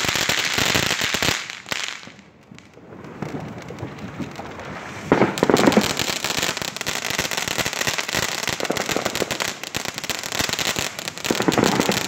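Firework fountains spraying sparks with dense crackling. The crackle drops away about two seconds in, builds again, and is loudest about five seconds in and again near the end.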